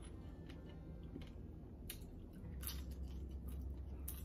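Cooked blue crab shells being cracked and picked apart by hand, faint crackling with three sharper snaps in the second half.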